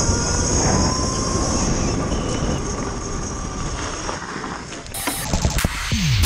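Wind rush and road noise of a Yamaha motorcycle converted to electric drive, riding along, with a steady high whine. About five seconds in this gives way to an edit transition effect: rapid clicks and a falling swoosh.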